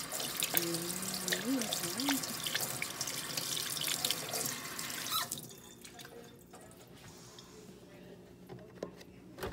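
Tap water running into a sink, shut off suddenly about five seconds in.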